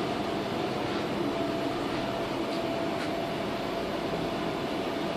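Steady cabin noise inside a diesel railbus: a constant low rumble and hum with a faint steady whine over it.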